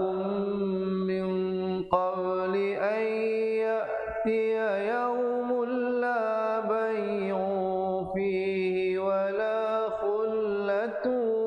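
A man's voice reciting the Quran in a melodic, chant-like tajwid style, one continuous line that holds long drawn-out vowels and glides between pitches.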